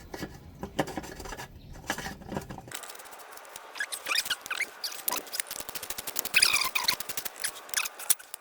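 Hands refitting an oil filter cartridge and its housing cap: rubbing, scraping and small clicks, with short squeaks in the second half.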